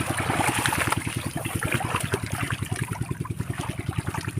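A small engine running steadily with a fast, even beat, while water splashes and trickles over it.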